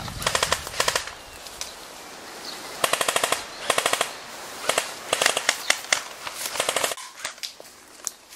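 Airsoft rifles firing full-automatic bursts: about half a dozen short, rapid bursts of clicking shots, each well under a second long, the first near the start and the rest after a short pause.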